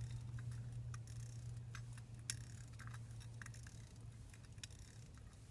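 Fusee pocket watch being wound slowly with its key: faint, irregular small clicks of the winding ratchet, over a low steady hum.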